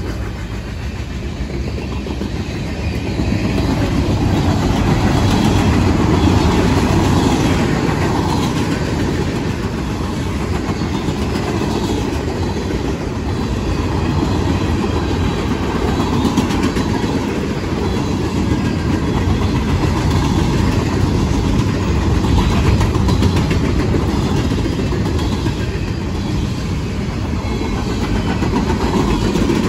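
Long freight train of loaded cars rolling past at track speed, steel wheels rumbling and clicking over the rail in a steady wash of noise that swells a few seconds in.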